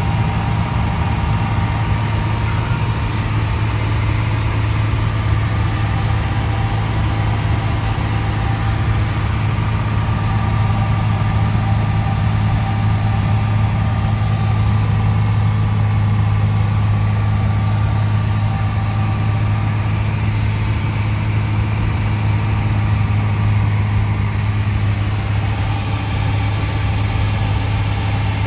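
Piper Saratoga's six-cylinder Lycoming engine and propeller droning steadily inside the cabin, throttled back to about 2060 rpm and 12 inches of manifold pressure for the approach descent.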